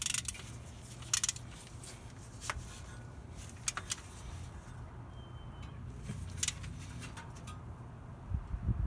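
Tools and parts being handled during under-truck work: a few sharp, separate clicks and light knocks over a low steady hum.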